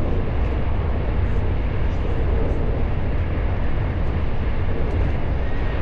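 Steady low rumble of a moving vehicle running at an even speed.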